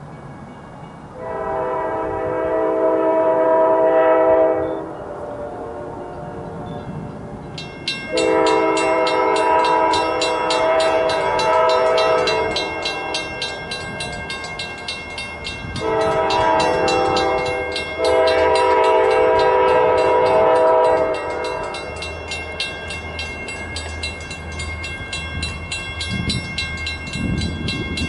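Diesel freight locomotive's multi-chime air horn sounding the grade-crossing signal, long, long, short, long, as the train approaches. A crossing bell starts ringing rapidly about eight seconds in, and the locomotive's engine rumble grows near the end.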